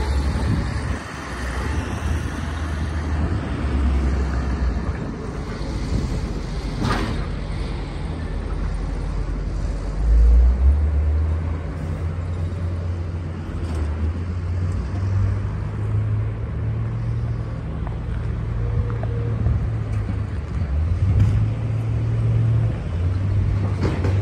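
Low, steady rumble of street traffic and heavy diesel snow-removal machinery, with a louder surge of low rumble about ten seconds in.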